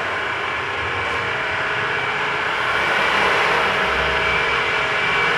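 Steady mechanical whirring noise with a faint hum, growing a little louder about three seconds in.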